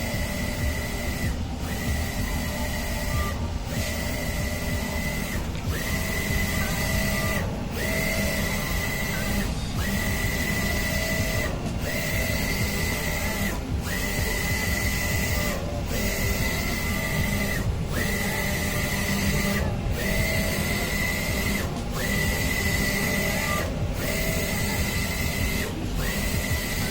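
Wide-format inkjet printer printing a banner: its print-head carriage sweeps back and forth with a steady whine. The whine breaks off briefly at each turn, about once every two seconds.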